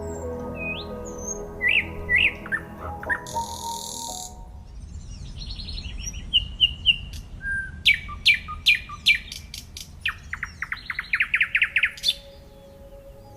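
Wild birds chirping and calling: short whistled notes, a quick run of sharp chirps, then a fast trill of rapid repeated notes near the end. Soft background music fades out about four seconds in.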